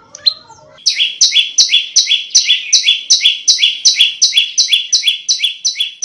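Prenjak lumut songbird singing: a short chirp, then about a second in a loud, fast run of notes alternating between a higher and a lower pitch, about six notes a second.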